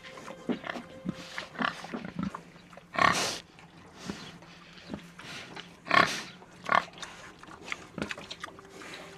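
A boar grunting and calling, with loud calls about three seconds in and again around six and seven seconds, and quieter grunts between, over a faint low steady music drone.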